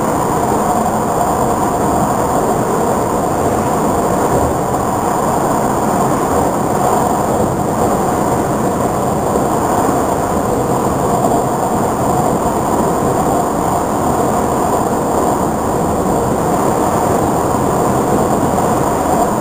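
Nanjing Metro airport express train running at speed, heard from inside the passenger car: a steady, even rumble of wheels on the rail and running noise that holds level throughout.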